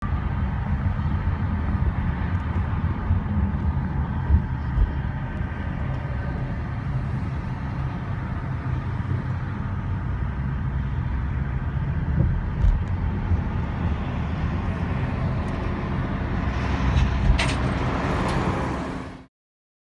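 Road and engine noise heard inside a moving car's cabin: a steady low rumble with a few brief knocks, cutting off abruptly near the end.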